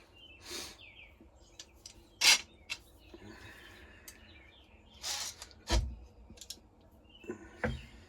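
Scattered clicks, scrapes and knocks as a clamp is fitted to hold a knife to a wooden block, with a heavier thump about six seconds in.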